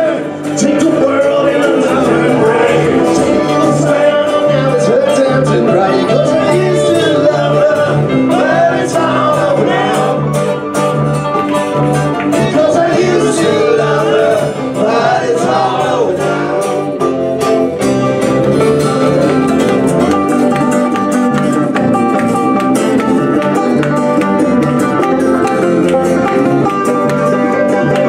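A live band playing a country/bluegrass-style song on acoustic guitar, banjo, bass guitar and keyboard, with a voice singing over it through the middle.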